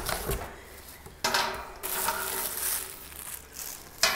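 Packing paper and plastic wrap crinkling and rustling as a metal bird-cage planter is pulled out of a cardboard shipping box, in uneven bursts starting suddenly about a second in and again near the end.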